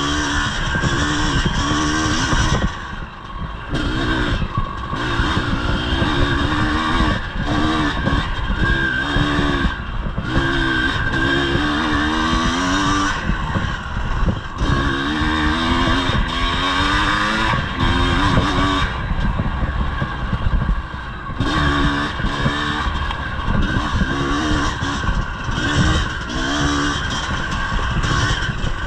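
1983 Yamaha IT 250's two-stroke single-cylinder engine revving up and down as the dirt bike is ridden hard along an enduro trail. The throttle is shut briefly about three seconds in and again about two-thirds of the way through.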